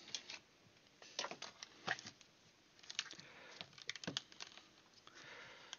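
Scattered light clicks and soft rustles of a handheld digital multimeter and its test leads being set down and handled on a desk mat, with a brief rustle near the end.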